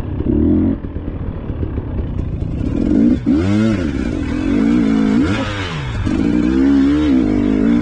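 Dirt bike engine under load on an off-road race course, its pitch swinging up and down a few times as the throttle is worked, then holding steadier near the end.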